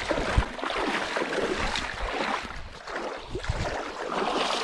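Water splashing and sloshing as someone wades through shallow lake water.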